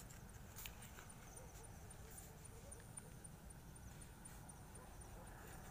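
Near silence: faint background hiss with a faint, even high-pitched ticking, about four a second.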